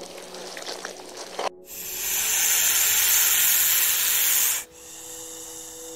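Australian black snake hissing: one long, loud, steady hiss of about three seconds that starts about a second and a half in and cuts off sharply, with a quieter hiss before it.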